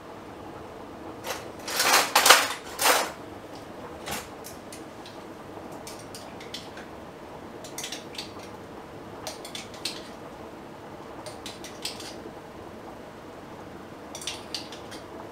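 Cutlery clattering in a kitchen drawer, loudest in a burst about two seconds in, followed by scattered light clinks and scrapes of a metal spoon against a glass jar as chutney is spooned out into a pan.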